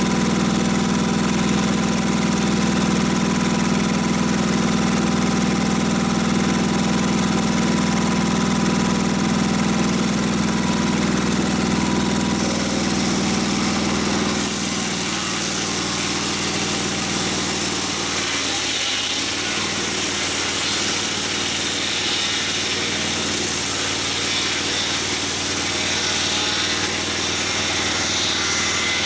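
Engine of a Mobile Dimension sawmill running steadily while milling a log. About halfway through, the low hum falls away and a louder hissing noise takes over.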